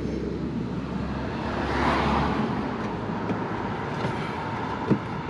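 A vehicle passing on the street, its noise swelling and fading about two seconds in, over steady traffic noise. A sharp click sounds near the end.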